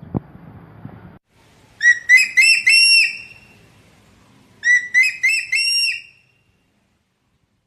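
An eagle calling: two loud series of shrill, whistled notes, each about a second and a half long and climbing in pitch, one about two seconds in and the second near the middle.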